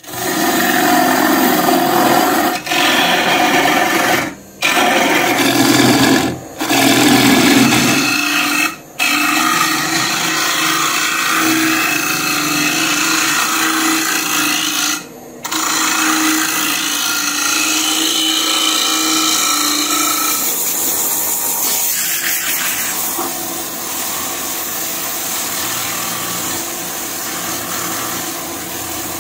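Gouge cutting the inside of a wooden bowl spinning on a Record Power Coronet Herald wood lathe: a loud rough scraping hiss over a faint steady motor hum, broken by several short gaps. After about twenty seconds it turns quieter and smoother.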